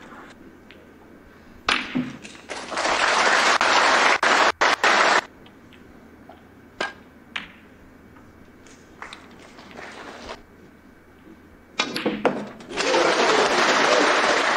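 Snooker balls clicking as shots are played, with two spells of audience applause: one starting about two and a half seconds in and lasting a few seconds, and another starting near the end.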